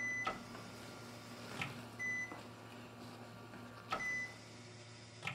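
Operating-room patient monitor beeping a short high tone about every two seconds, over a steady low hum of room equipment, with a few faint clicks between the beeps.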